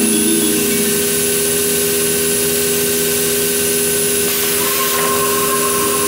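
CNC router spindle running with its dust extraction: a steady, loud whine over a hiss. A further steady tone comes in a little past halfway.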